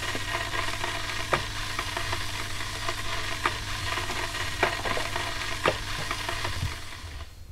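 Electric kettle coming to the boil: a steady rushing hiss with a low hum and scattered crackles and ticks. It cuts off near the end as the kettle switches off.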